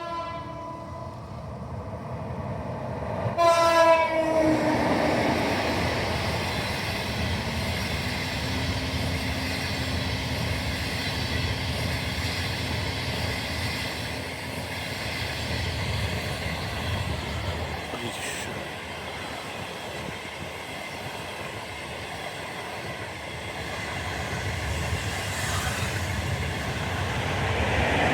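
CR200J push-pull train sounding its horn as it passes: a short blast at the start, then a louder one about three and a half seconds in that drops in pitch. After that comes the steady rush of the train running past, swelling again near the end.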